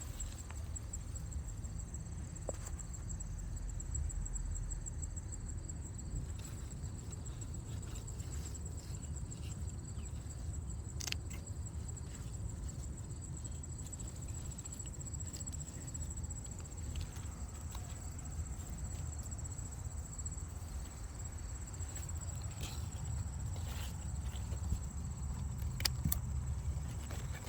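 Insects, crickets by the sound of it, chirring in a steady high trill throughout, over a low rumble, with scattered clicks and rustles.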